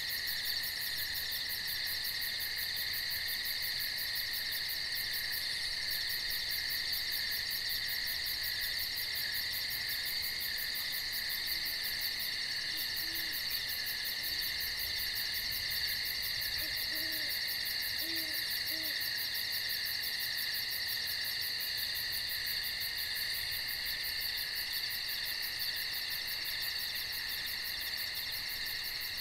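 Night insect chorus of steady, shrill trilling, with an owl hooting faintly a few times past the middle.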